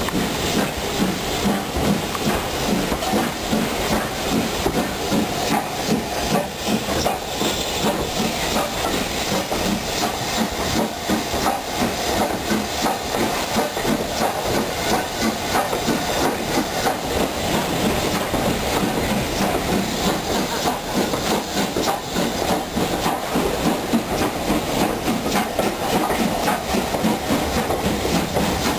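BR Standard Class 5MT 73096, a two-cylinder 4-6-0 steam locomotive, working steam as it pulls away at low speed, heard close up from its cab: exhaust, hissing steam and wheels running over the rails.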